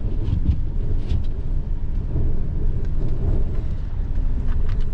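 Van driving on a snow-covered road, heard from inside the cab: a steady low rumble of engine, tyres and wind, with a few faint clicks.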